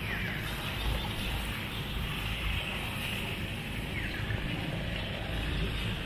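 Steady outdoor ambience: a low rumble of wind on the microphone under an even hiss. A bird gives a short falling call at the start and again about four seconds in.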